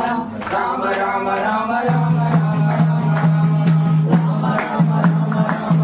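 Devotional bhajan singing with hand percussion keeping a steady beat; about two seconds in, a held low note enters under the rhythm.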